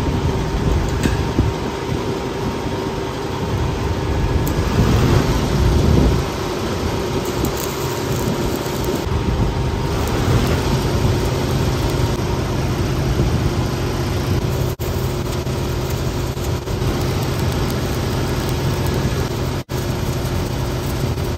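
Arc welding on steel tubing: a steady crackling hiss from the arc over the low, even hum of an engine running steadily. The sound drops out briefly twice near the end.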